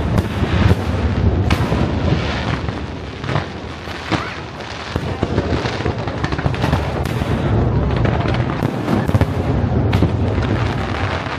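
Aerial fireworks display: a dense run of bangs and crackling, several a second, over a low rumbling background, easing slightly about four seconds in before picking up again.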